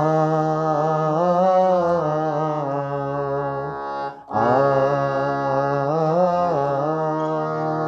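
Harmonium playing the bhajan's melody in two phrases over a held low note, with a brief break about four seconds in.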